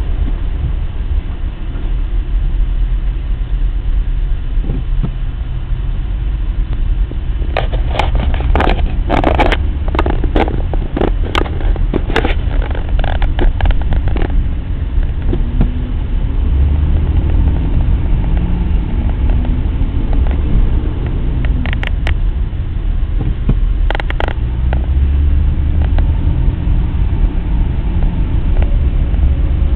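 Steady low rumble of a car's engine and tyres heard from inside the cabin while crawling in slow highway traffic. A run of sharp clicks and knocks comes about a quarter of the way in, and two more come a little past two-thirds through.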